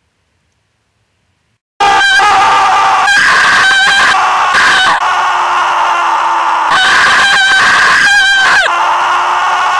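A woman screaming, loud and harsh, starting suddenly about two seconds in after silence and held with only brief breaks.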